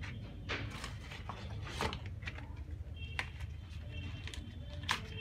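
Rubber-gloved hands crumbling and squeezing lumps of black soap in a clay pot: irregular short crackles and squishes over a steady low hum.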